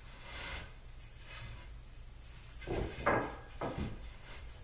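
Day bed parts being handled during assembly: a short scrape, then three knocks with scraping about three seconds in.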